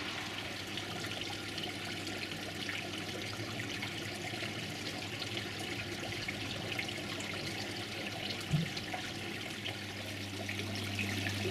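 Water splashing and trickling steadily from a small fountain into a koi pond, over a steady low hum, with a single thump about eight and a half seconds in.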